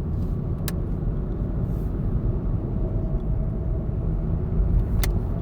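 Steady low vehicle rumble, with a sharp click about two-thirds of a second in and another near the end.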